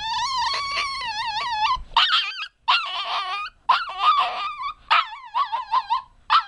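Cavalier King Charles spaniel puppy crying after his vaccination shots: one long wavering cry of about two seconds, then a run of shorter whining yelps.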